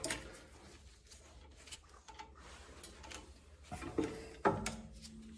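Metal hand tools clinking at a car's rear brake caliper bracket: a few light clicks, then two sharper metallic knocks about four seconds in, the second ringing briefly.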